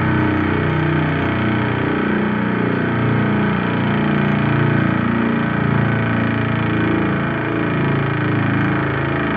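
Electric air raid siren spun up only partway, giving a steady low growl instead of a full wail; it runs normally.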